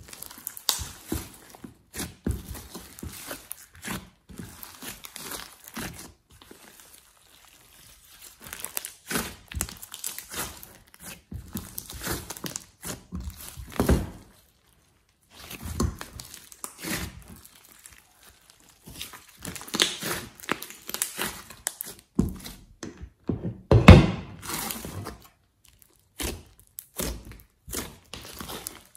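Hands squishing, kneading and poking a large mass of glossy slime, giving irregular wet squelches, crackles and pops. There is a loud pop about halfway through and the loudest a few seconds before the end, with brief silent breaks between.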